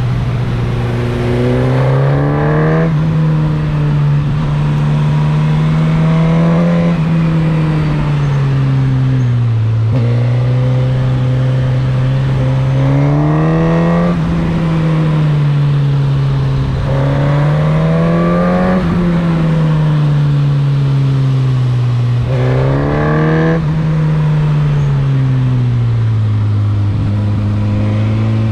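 A Suzuki GSX-S1000's inline-four engine heard from the rider's seat on the move. Its note climbs in pitch several times as the throttle opens and falls away as the rider eases off, over steady wind and road rush.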